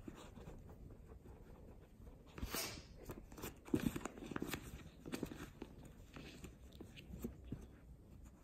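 A Ragdoll kitten clawing and biting into a cardboard tissue box, pulling tissues out. Soft crinkling of tissue paper with small scratches and taps, busiest from about two and a half to five seconds in.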